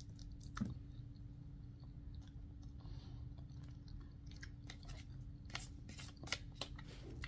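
Quiet chewing of nasi lemak, with soft crunches and small clicks that come more often in the second half, over a faint steady hum.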